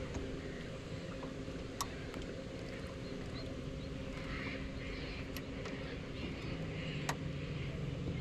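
Small boat's motor running steadily in reverse, a low even hum, with a few sharp clicks about two seconds in and again near the end.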